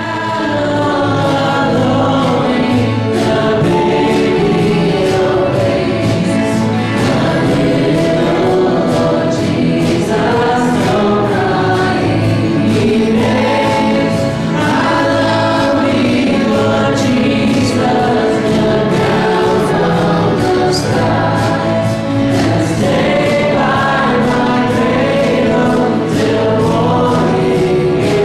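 Church choir singing a Christmas hymn, full and steady throughout.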